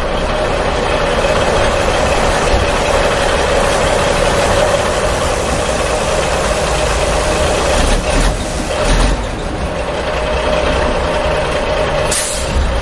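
A vehicle engine running steadily, a loud unbroken noise with a constant hum.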